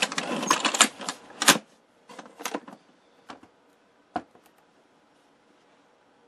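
Hands handling a Telecheck CRT substitutor box and its removed metal speaker panel on a workbench: a quick run of clicks and knocks in the first second and a half, then a few scattered clicks, the last one about four seconds in.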